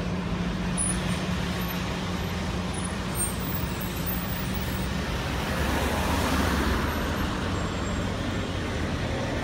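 Street traffic: buses idling with a steady low engine hum, and a car passing close, swelling to its loudest about six seconds in.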